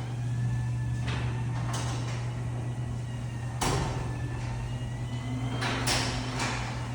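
LiftMaster garage door opener motor running with a steady hum as it drives a sectional garage door closed. The door clatters in its tracks several times along the way.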